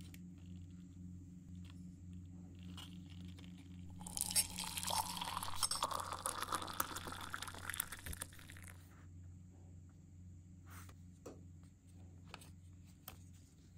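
Small plastic model-kit parts being handled and fitted, giving light clicks and taps over a steady low electrical hum. About four seconds in, a crackly, crunchy rustle starts and lasts roughly five seconds, then fades back to scattered clicks.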